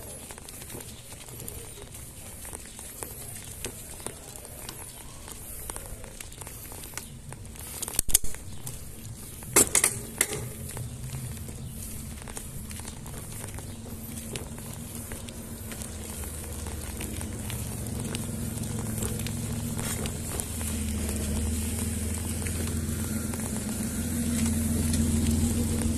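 Mountain bike rolling over a rough, cracked concrete street: a steady crackle of tyres and grit with scattered small clicks. There are sharp knocks about 8 and 10 seconds in, and a low hum builds over the second half.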